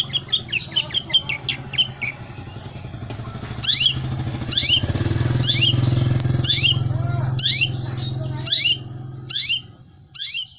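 Long-tailed shrike (cendet) calling: a quick run of short chattering notes, then a string of sharp calls that sweep downward, about one a second. Under them a low engine hum builds and then drops away near the end.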